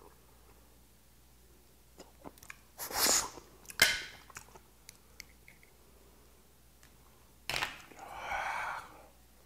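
Close-up eating sounds: faint clicks of a metal pick working a boiled white whelk out of its shell, two short sharp noises about three seconds in, then a sharp smack and about a second of wet slurping as the whelk meat goes into the mouth and is chewed.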